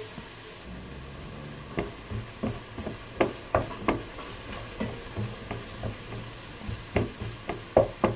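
Wooden spatula stirring chopped onions in a non-stick frying pan, knocking and scraping against the pan. The knocks come irregularly, several a second, from about two seconds in.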